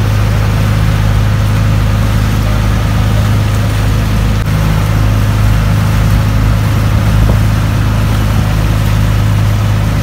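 Outrigger boat's engine running steadily while under way, a loud unchanging low drone, with a rushing hiss of wind and water over it.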